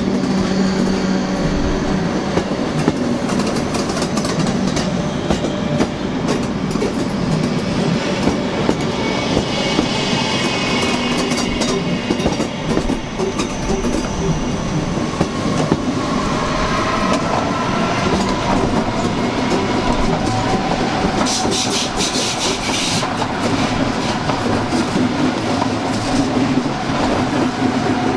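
Red electric S-Bahn multiple units moving through a station: a steady rolling rumble with wheels clattering over rail joints and points in bursts. About two-thirds of the way through, a motor whine rises in pitch as a train gathers speed.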